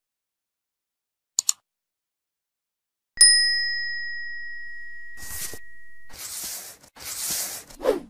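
Sound effects for a subscribe animation. A quick double mouse click comes first, and about three seconds in a single bright bell ding rings out and slowly fades. Three bursts of hissing noise follow near the end.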